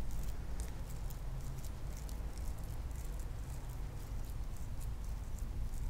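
Faint soft patting and squishing of wet hands pressing and rounding a patty of cooked millet, with small irregular clicks, over a low steady hum.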